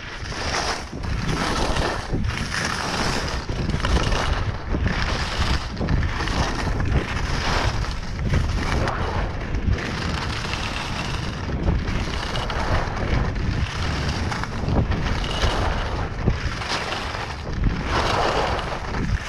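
Wind buffeting a body-mounted action camera's microphone during a downhill ski run, mixed with alpine skis hissing and scraping over packed groomed snow. The rushing surges in regular pulses about once a second, with a heavy low rumble throughout.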